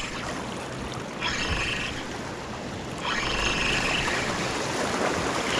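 Small waves washing against shoreline rocks, with a brief surge about a second in and a longer one from about three seconds on.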